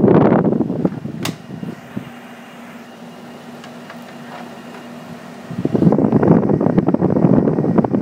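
Mid-1980s Carrier window air conditioner running on high fan speed over a steady hum, its air blast buffeting the microphone as gusty wind noise at the start and again from about halfway on. A sharp click about a second in.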